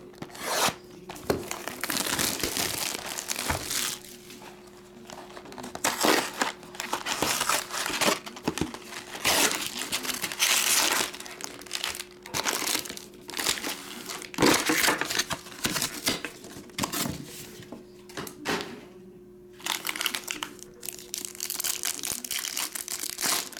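Foil trading-card pack wrappers crinkling and rustling in irregular bursts as a sealed card box is cut open and its packs are pulled out and stacked. Near the end one foil pack is torn open.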